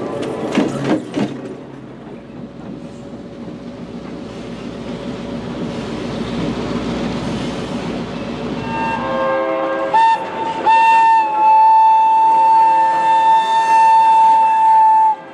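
A diesel locomotive rolls past close by and fades down the track. Then a train whistle blows one long, steady blast lasting about five seconds, which is the loudest sound, and it cuts off abruptly near the end.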